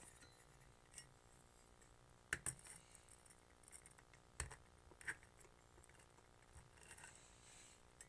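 Faint handling of a glass light globe against the metal spring clips of a ceiling fan light kit: a few sharp clicks about two and a half, four and a half and five seconds in, with fainter ticks between.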